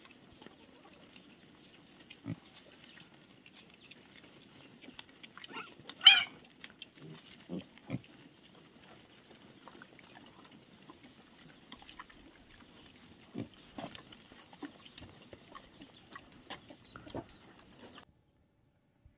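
Herd of black pigs and piglets grunting and snuffling, with scattered short grunts and one loud, short squeal about six seconds in. The sound drops away suddenly near the end.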